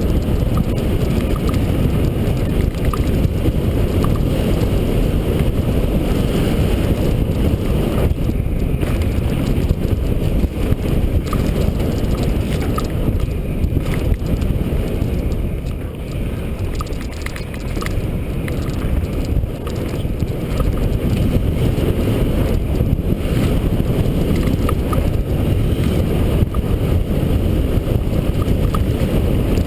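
Mountain bike rolling down a dirt trail: wind rushing over the microphone and tyre noise fill the clip, with scattered sharp clicks and knocks from the bike over bumps. It eases off a little about halfway through.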